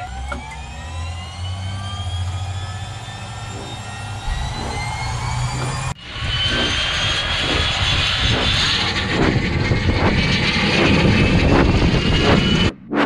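Bell 412EP helicopter's Pratt & Whitney PT6T Twin-Pac turboshaft engines starting: a turbine whine rising steadily in pitch as the engines spool up. Regular low pulses from the main rotor come in as it begins to turn and quicken through the second half. The sound cuts off suddenly near the end.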